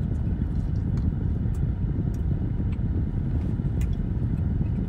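Steady low rumble inside a parked car, with a few faint clicks of chewing.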